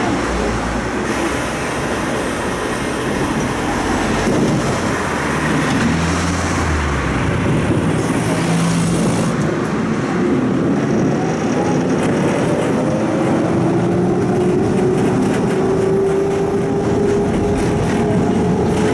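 Electric tram running along its rails, heard from inside the car: a steady rumble of wheels and running gear, with a motor whine that rises slowly in pitch over the last five seconds or so as it gathers speed.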